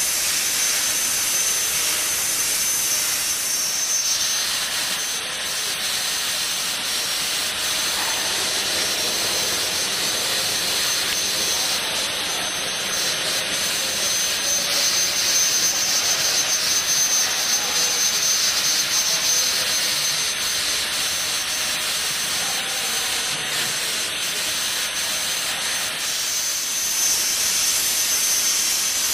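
Plasma torch of a CNC pipe-cutting machine running, a steady loud hiss. A thin high whine present at the start fades out about four seconds in as the hiss turns brighter, and comes back near the end.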